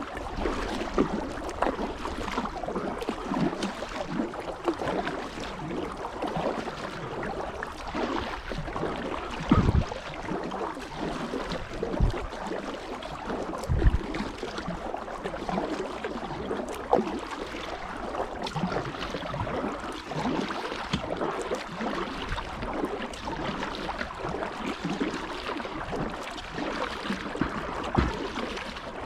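Kayak paddling: the blades dip and splash steadily, water trickles and drips off them, and a few short low thumps stand out.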